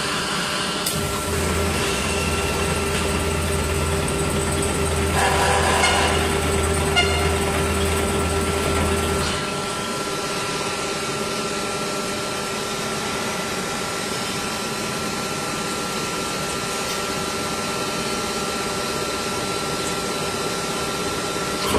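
Injection moulding machine running through a cycle with the 6-cavity PET preform mould clamped shut: a steady mechanical hum with a constant whine. A low drone on top stops about nine seconds in, leaving a quieter steady hum.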